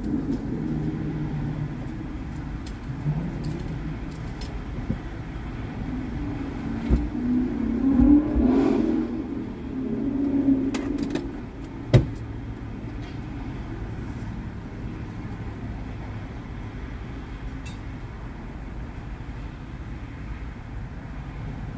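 Steady low vehicle hum heard inside a car cabin. It swells louder around eight to ten seconds in, with scattered clicks and one sharp knock about twelve seconds in.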